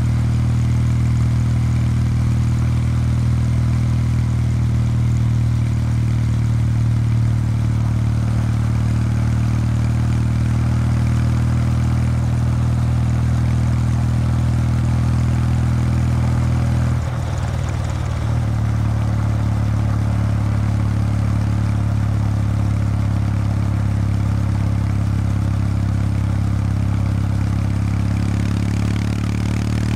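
Kawasaki W800 Street's air-cooled 773 cc parallel-twin engine through its stock exhaust, running steadily under way on the road. The note briefly drops away about seventeen seconds in, picks up again, and climbs in pitch near the end.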